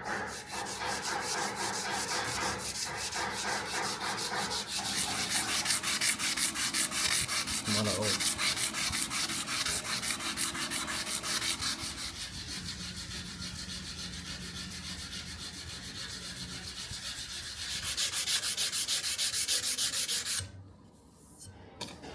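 Abrasive paper rubbing back and forth on a steel knife blade in rapid, even strokes, stopping shortly before the end.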